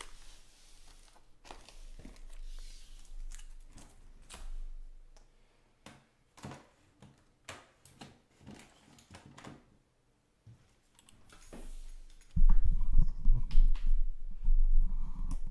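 Cardboard trading-card hobby boxes being handled and set down on a table: scattered taps, clicks and paper rustles. About twelve seconds in, a much louder stretch of low, uneven thumping and rumbling begins.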